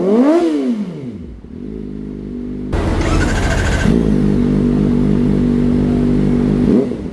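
Kawasaki ZX-4RR's 399 cc inline-four with a slip-on exhaust being revved: a quick blip that rises and falls back toward idle, then about three seconds in the revs jump up sharply and are held steady for around three seconds before dropping near the end.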